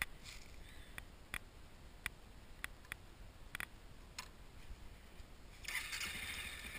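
A few scattered light clicks, then near the end a 2013 Honda CRF250L's fuel-injected single-cylinder engine starts and runs at a steady, quiet idle.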